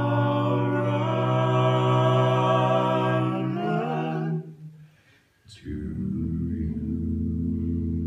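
Male voices singing a cappella, holding a sustained chord that shifts once and fades out about four and a half seconds in. After a brief gap, a low, steady music drone begins.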